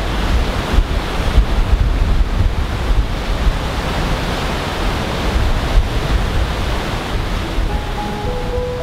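Strong wind buffeting the microphone: a loud, gusting rumble over a steady rushing hiss. A few soft, sustained music notes come in near the end.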